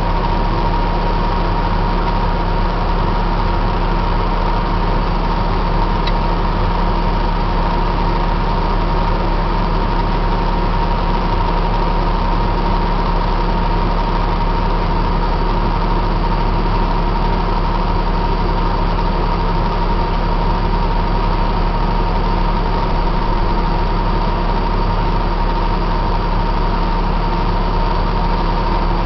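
Heavy Caterpillar diesel engine idling steadily, heard from inside the machine's cab, with a constant thin whine over the low engine hum.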